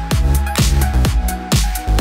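Electronic dance music with a steady kick drum about two beats a second under held bass and synth notes.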